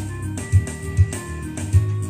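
Karaoke backing track playing from a Megapro Plus MP7000JB HD Plus karaoke player: electronic music with sustained keyboard tones over a heavy, regular bass beat.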